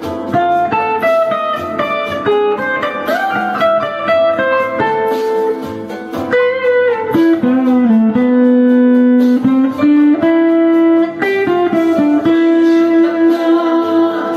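Guitar playing a slow solo melody of long held notes, with bends and slides between them. The last note slides downward at the very end.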